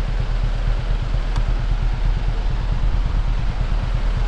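Bus engine running, heard from inside the bus: a steady low rumble with road and cabin noise.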